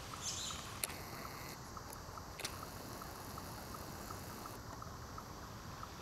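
Woodland ambience in light wind: a steady low rumble of wind, faint ticks repeating about three times a second, and two sharp clicks, about one and two and a half seconds in.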